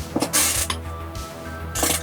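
Background synthwave music with a steady bass line and held notes, and two sharp noisy hits, about half a second in and near the end.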